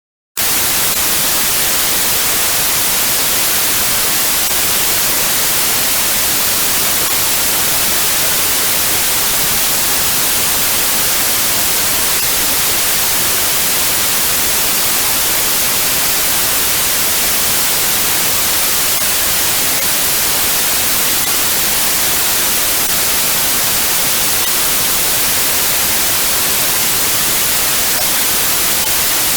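Steady white noise, an even hiss strongest in the high frequencies, switching on suddenly about half a second in and then holding without change.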